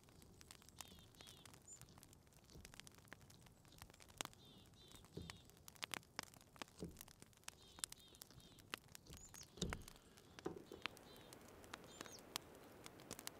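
A spruce grouse being skinned and plucked by hand: skin tearing and feathers rustling, many small crackles and ticks with a few heavier thumps. A small bird chirps faintly in short runs of two or three notes, several times.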